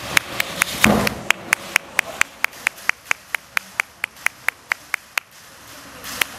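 A rapid, very even series of short sharp clicks, about four to five a second, with a single duller knock about a second in.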